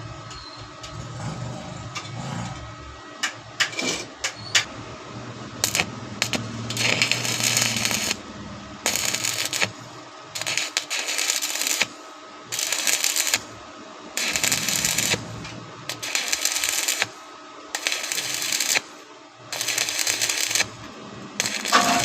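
Electric arc welding in short stitches: a sputtering crackle about a second long, stopping and restarting every second or two. A few sharp clicks come before the first stitch.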